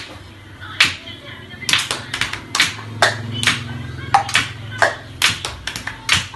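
Sharp, irregular taps and knocks on hard household objects, about two or three a second, some louder than others, over a low steady hum.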